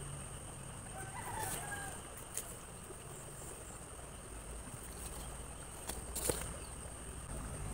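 A rooster crowing once, faint, about a second in, over a steady high insect drone. A few sharp clicks and taps follow, the loudest near the end.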